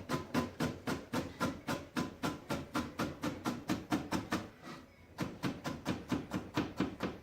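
Kitchen knife rapidly chopping carrot strips into dice on a cutting board, about five even chops a second, with a brief pause a little under five seconds in.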